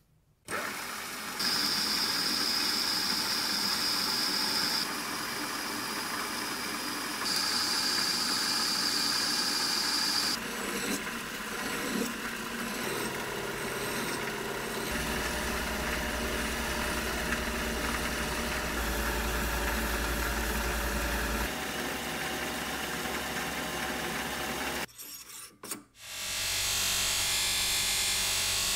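A metal lathe running while abrasive cloth sands a spinning steel workpiece, then a hand file rasping against the spinning part. Near the end a bench buffing wheel spins up and the steel pin is held against it for polishing.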